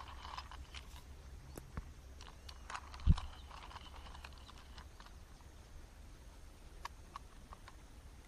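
Faint scattered clicks and handling noises, with one dull thump about three seconds in, over a low steady rumble.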